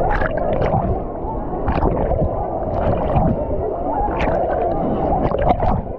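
Wave pool water sloshing and churning around a GoPro action camera at the water's surface, with a steady muffled rumble and repeated sharp splashes.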